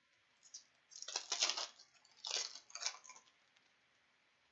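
Hockey trading cards and their foil pack wrapper rustling as a pack is opened and the cards are handled, in two short bursts, about a second in and again about two seconds in.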